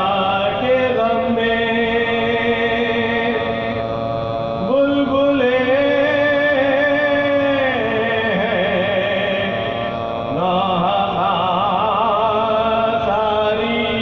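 Soz khwani: a marsiya elegy chanted in Urdu, a voice singing long, wavering held notes that change pitch every few seconds.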